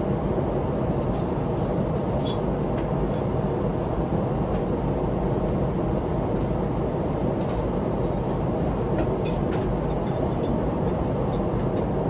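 Steady cabin noise of a Boeing 777-300ER in flight while descending, an even rush of engine and airflow noise. A few faint light ticks sound over it, about two seconds in and again near the end.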